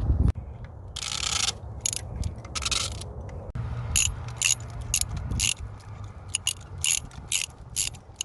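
Hand ratchet with an extension and a 5/8 spark plug socket clicking as a spark plug is loosened. It makes a few longer ratcheting runs first, then shorter strokes about two a second.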